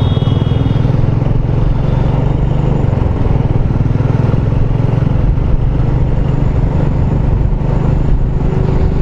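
Royal Enfield Bullet 350's single-cylinder engine running steadily at road speed, heard from on the bike as a fast, even pulsing mixed with wind and road noise.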